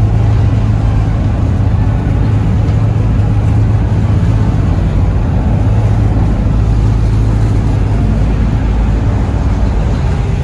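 Passenger ferry's fuel engines running under way, a loud steady low drone heard from on board.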